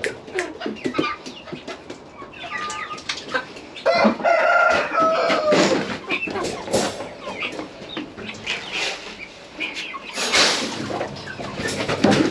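Chickens clucking with a series of short calls, with a short loud rustle about ten seconds in.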